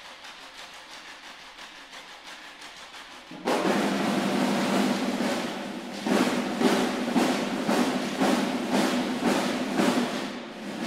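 Massed snare drums of a percussion ensemble playing a soft, fast roll, then coming in suddenly and loudly all together about three and a half seconds in. From about six seconds on, strong accents land two to three times a second over the continuing roll.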